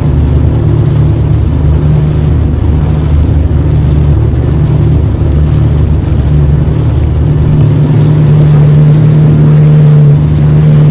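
Jet ski engine running steadily at speed, a loud, even drone that grows a little louder in the last few seconds, with wind and water rushing past.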